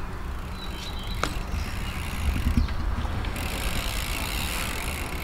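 Bicycle rolling across the skatepark surface: a steady low tyre rumble, with a single sharp click about a second in.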